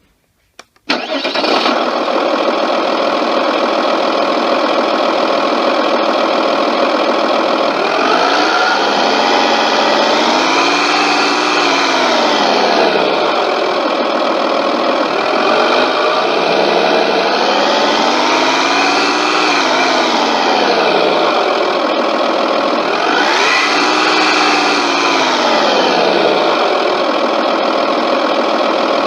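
Electronic sound unit of an RC Wiesel 1 TOW tank model playing a simulated engine through its small speaker. The engine starts about a second in and runs steadily, then revs up and back down three times, slowly each time.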